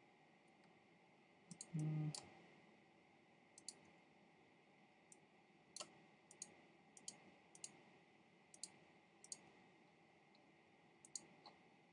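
Computer mouse clicking: single sharp clicks at irregular intervals, sometimes two in quick succession, over a faint steady room hiss. A brief murmur from a man's voice about two seconds in.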